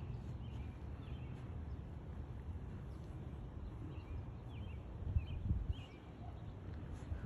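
Outdoor ambience: a low rumble of wind on the microphone, with a few faint bird chirps now and then.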